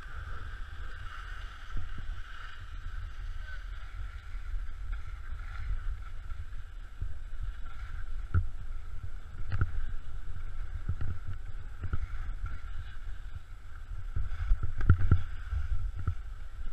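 Wind buffeting the camera's microphone as a steady low rumble, with a faint steady whine above it and several dull knocks from about eight seconds in, the clearest near fifteen seconds.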